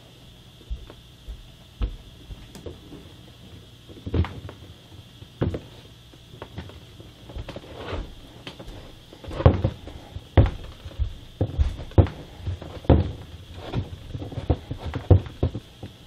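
Irregular knocks and taps from a metal model tank road wheel and its rubber tire being handled and pressed together on a cardboard-covered bench, getting busier in the second half.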